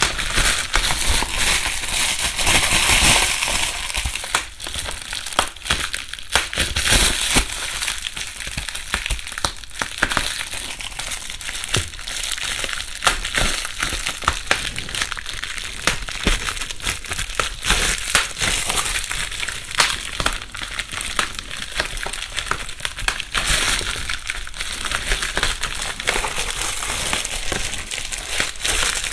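Plastic bubble wrap being handled and crumpled, rustling and crackling, with many small sharp pops as the bubbles burst.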